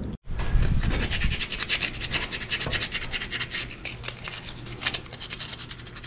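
Flat-blade screwdriver scraping around the edge of a hole in a galvanized steel door jamb, in rapid, rough strokes, trimming the hole to size for the deadbolt's bolt.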